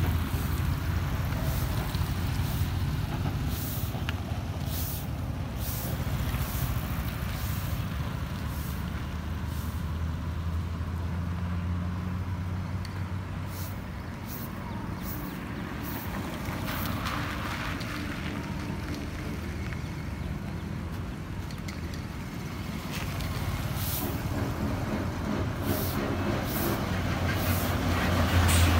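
A truck engine running steadily, a low rumble, with brief high hissing sounds scattered through; the rumble grows louder near the end.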